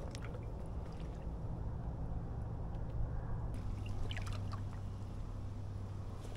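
Faint water swishing and lapping around legs wading through shallow floodwater, over a steady low rumble, with a few faint ticks near the middle.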